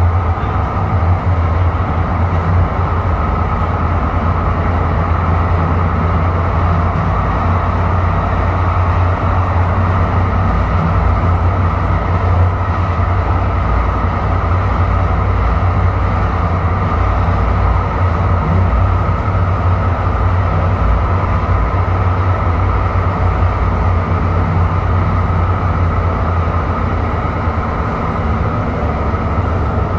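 Inside a moving C-Train light rail car: the steady running noise of the train, a constant low rumble with no distinct knocks or announcements.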